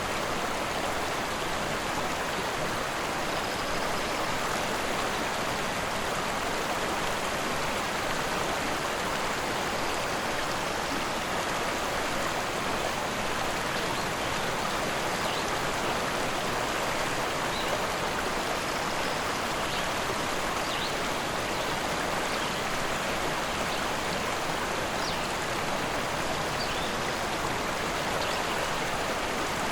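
A rushing forest river: a steady, even rush of flowing water over rocks that does not change. A few faint, short high notes come through in the second half.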